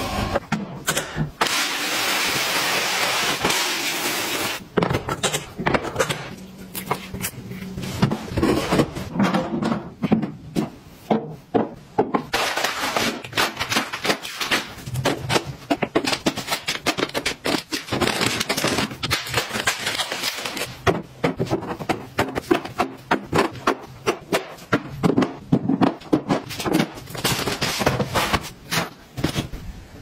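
Hard plastic storage drawers, a cabinet door and clear plastic bins being handled: many small clicks, taps and knocks, with a few longer stretches of rustling packaging as treat pouches are set into the bins.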